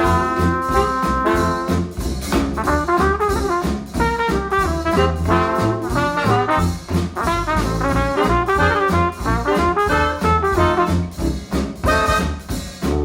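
Upbeat retro jazz with trumpet and trombone over a steady drum beat and bass, played back over hi-fi bookshelf speakers.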